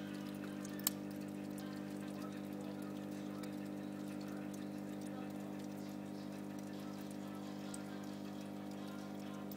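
Aquarium filter running: a steady low hum with water trickling, and a single sharp click about a second in.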